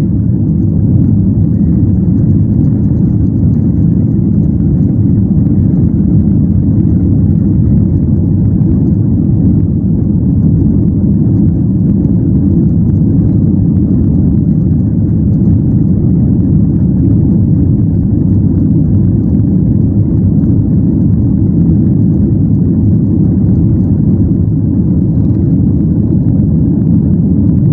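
Airliner's jet engines running at takeoff thrust together with the rumble of the wheels rolling down the runway, heard from inside the cabin: a loud, steady low rumble.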